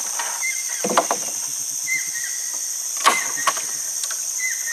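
Steady high-pitched insect drone, a rainforest chorus of cicadas or crickets, with a short chirp repeating about every second and a half. Two sharp knocks, about a second in and about three seconds in, are the loudest sounds.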